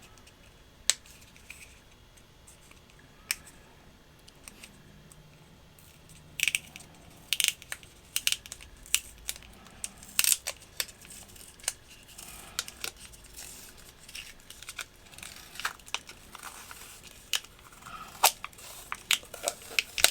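Packaging of a USB charging cable being handled and opened by hand: scattered sharp clicks with crinkling and tearing of plastic and tape. A couple of isolated clicks at first, then busier handling from about six seconds in.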